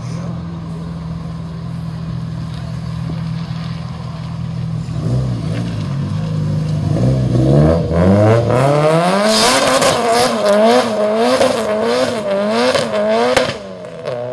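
Nissan 200SX (S14) engine idling, then revving hard as the car pulls away spinning its rear tyres. The revs rise and fall in quick even waves under a loud tyre screech, and the sound cuts off sharply near the end.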